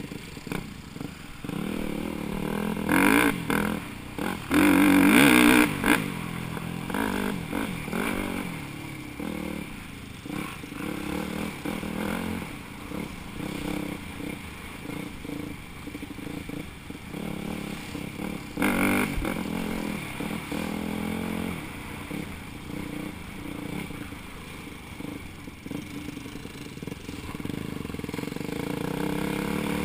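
Dirt bike engine, heard from the rider's helmet, revving up and easing off again and again on a rough trail, with clattering from the bike over the ground. The loudest bursts of throttle come about three and five seconds in, and again a little before halfway.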